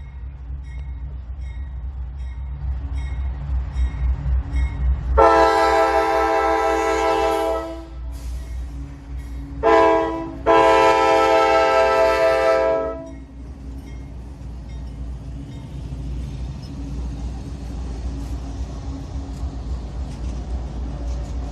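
CSX freight locomotive's multi-chime air horn sounding a long blast, a short one and another long one, the closing part of the grade-crossing signal, over the steady rumble of the passing train.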